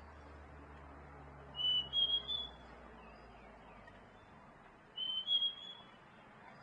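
A bird giving two high whistled calls about three seconds apart, each about a second long and rising slightly in pitch, over a faint low hum.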